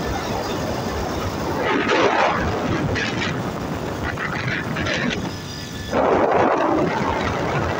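Steady wind rush and road noise on a phone microphone carried while riding a motorbike. Short bursts of men's voices come through a few times, loudest just after the middle.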